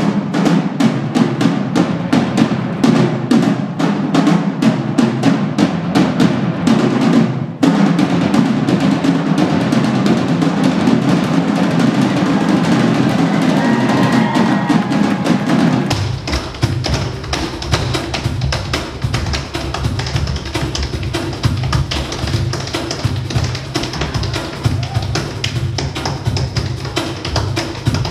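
Two drummers play a fast rhythm with sticks on a set of tom drums, with a short break about a quarter of the way in. About halfway through, the music changes to a deeper groove with a strong bass and a steady beat.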